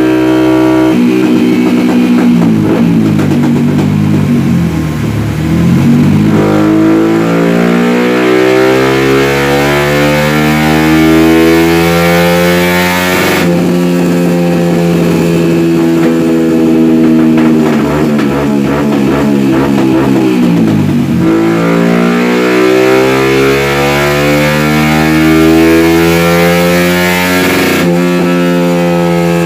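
Tuned 62 mm-bore four-stroke motorcycle engine being run hard on a dyno: the revs climb steadily, cut off sharply, fall away, then climb again in a second pull that cuts off near the end.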